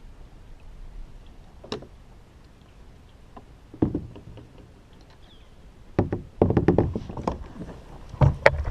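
A series of sharp knocks and dull thuds from handling: single ones early, then a dense run about six to seven and a half seconds in, and a few more near the end.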